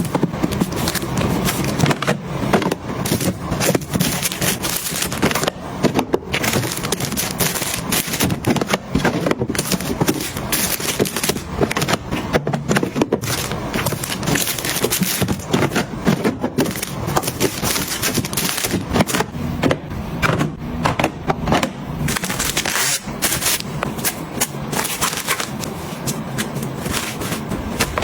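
Continuous crackling and scraping of packaging and containers being handled, made of many short clicks and rustles.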